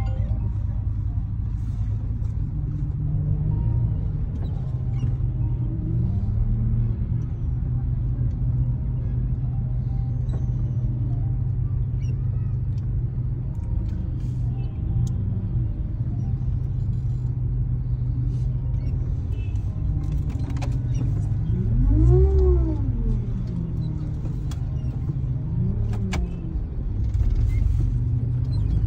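A van's engine and road rumble heard from inside the cabin while it creeps through traffic. The engine revs up and eases off four times, loudest about two-thirds of the way through.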